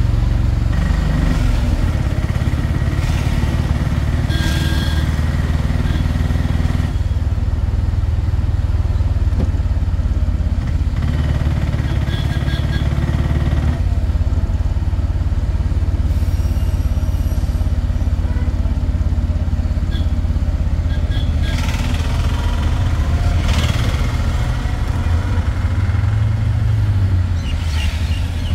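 A motorcycle engine running steadily while being ridden, with a constant low rumble; other traffic passes now and then.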